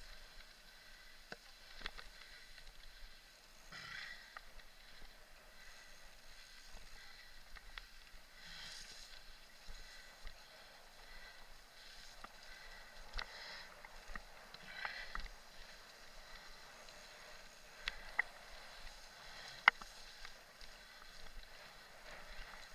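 Mountain bike ridden over a rough grass and dirt track: faint hissing tyre and trail noise that swells now and then, with scattered sharp clicks and rattles from the bike, the loudest click about twenty seconds in.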